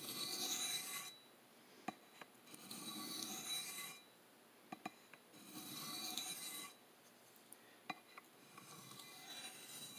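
Freehand sharpening strokes of a CPM M4 steel knife blade across a wet 1200-grit DMT diamond plate. There are four passes, each about a second long, with short pauses between them that hold a few light clicks. The edge is smoothing out on the fine grit.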